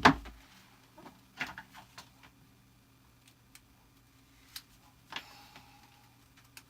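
Packaging being handled on a table: one sharp knock at the start, then a few small clicks and rustles as plastic-wrapped lenticular mats are opened and sorted.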